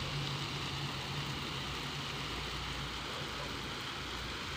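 Water spraying from a homemade hose shower head and pattering down on rose bushes and soil: a steady hiss like rain. A low steady hum sits under it and stops about three seconds in.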